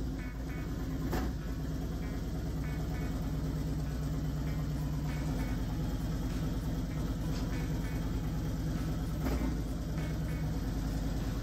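Harley-Davidson Street Glide's 114-cubic-inch V-twin idling steadily.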